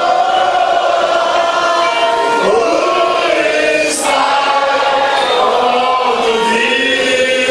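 A church choir singing together in long held notes that shift slowly in pitch.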